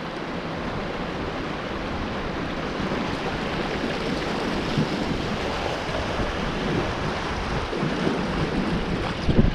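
River water rushing and splashing through a shallow rocky riffle around the kayak, with wind buffeting the microphone. A low thump near the end.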